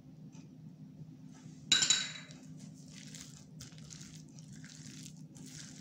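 A metal spoon clinks sharply against a glass bowl with a brief ring, the loudest sound, a little under two seconds in. It then stirs and scrapes through a thick, wet chopped-vegetable pakora batter in a run of short squelching strokes. A low steady hum runs underneath.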